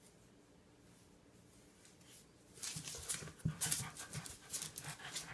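Small dog panting fast and hard as it comes round from a seizure, starting about two and a half seconds in after a quiet stretch.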